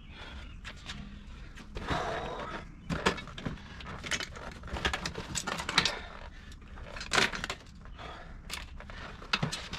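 Scattered clicks, knocks and rattles of hand work on a car seat being removed, with light rustling between them.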